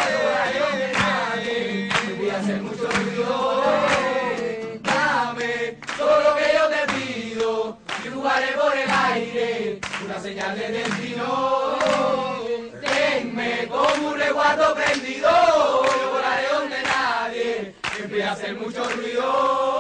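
A group of young voices singing together in chorus, accompanied by an acoustic guitar.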